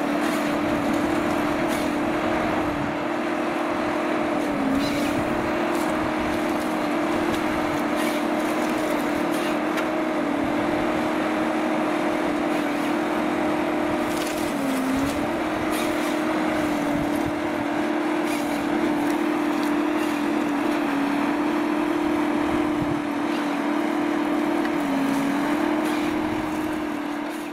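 Ponsse Scorpion King forest harvester's diesel engine and hydraulics running steadily as a constant drone whose pitch sags briefly every few seconds while the harvester head works a tree, with scattered light clicks.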